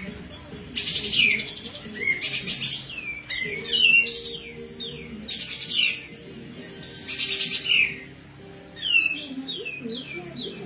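Caged kapas tembak, a bulbul, singing its fast besetan: short, loud, rattling bursts of rapid-fire notes about every one and a half seconds, with quick down-slurred whistles between them.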